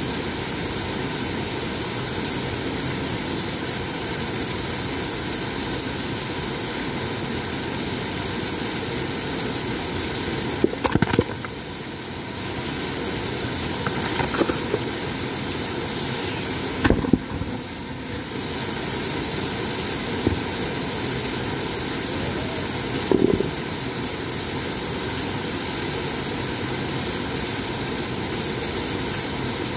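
Waterfall's steady roar of water pouring onto rock, with a few brief knocks scattered through.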